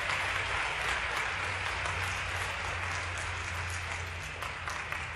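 Spectators applauding at the end of a figure skating program, steady clapping that eases off slightly near the end.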